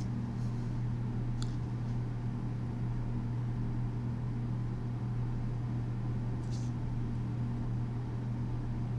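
Steady low hum with a faint hiss, the background noise of a room or a fan, with a couple of faint soft ticks.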